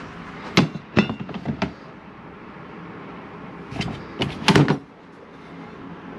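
A few sharp knocks and clunks, in a group of four early on and a louder cluster about four seconds in, over a steady low background hum.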